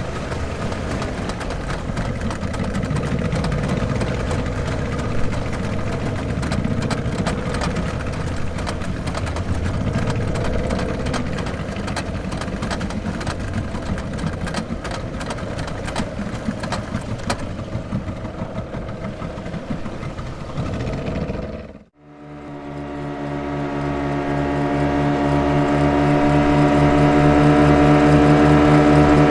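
Motorboat engine running with a rough, uneven sound. About three quarters of the way through it dips to silence for an instant, and a different engine with a steady, even drone fades in and grows louder.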